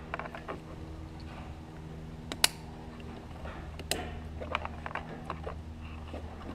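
Plastic wiring-harness connectors clicking and rattling as a plug is handled and pushed onto a sensor connector, with sharp clicks about two and a half and four seconds in. A steady low hum runs underneath.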